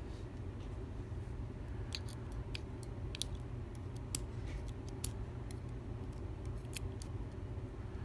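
Scattered light metallic clicks and ticks of small lock parts being handled as the challenge lock's driver pins are taken out, over a steady low hum.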